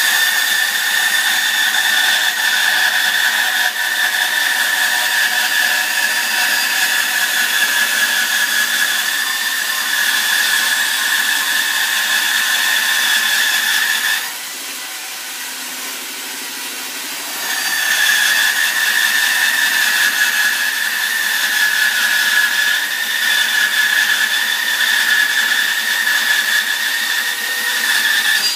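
Homemade bandsaw cutting through wooden blocks, with a steady high whine during each cut. Midway it drops to a quieter running sound for about three seconds, then a second cut starts.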